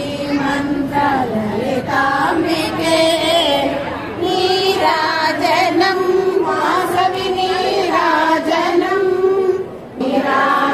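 Women's voices singing a Hindu devotional aarti song together, with long drawn-out notes. The singing breaks off briefly near the end.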